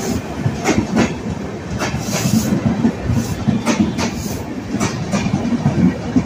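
Passenger train pulling out of a station, its coaches rolling past with a steady rumble and wheels clacking over rail joints about once a second.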